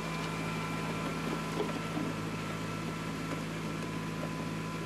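Diesel compact tractor engine running at a steady speed as it pulls a grading scraper's blades over loose gravel.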